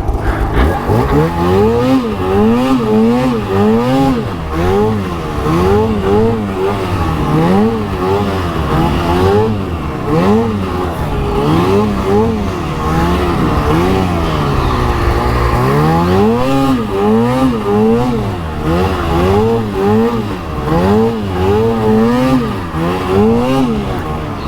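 Arctic Cat 858 two-stroke snowmobile engine revving up and down over and over, its pitch rising and falling roughly once a second under load in deep snow. The engine is bogging and won't pull RPM.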